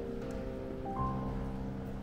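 Slow, soft piano music: held notes fading away, with a new chord struck about a second in.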